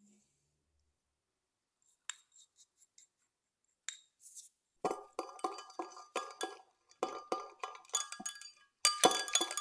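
Instant dry yeast sprinkled into milk in a glass measuring jug, giving a few light ticks. Then a thin metal utensil stirs the yeast in, clinking repeatedly against the glass, with the clinks coming faster near the end.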